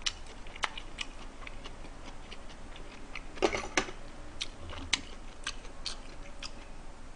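Close-miked eating sounds of a person chewing with his mouth: scattered wet clicks and smacks, with a louder cluster about three and a half seconds in.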